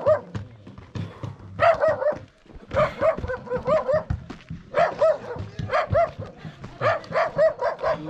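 Dog barking in quick runs of short barks, with brief pauses between the runs: barking at a strange dog that came along with a group of walkers.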